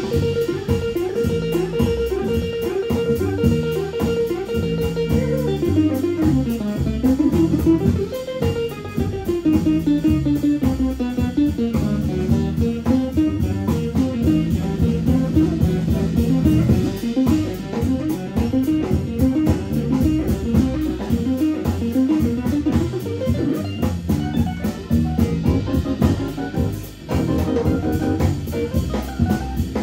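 Live jazz trio playing: a plucked string instrument carries a winding melodic line over a drum kit, with a long held note in the first few seconds.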